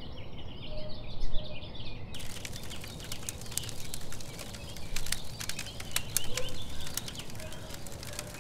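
Small birds chirping for about two seconds, then a run of sharp, irregular clicks and knocks.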